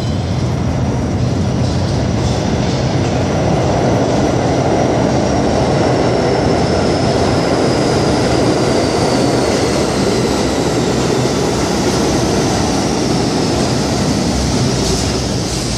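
R32 New York City subway train pulling into the station on the far track: a loud rumble of wheels on rails that builds over the first few seconds and then holds, with a thin high whine slowly falling in pitch as the train slows.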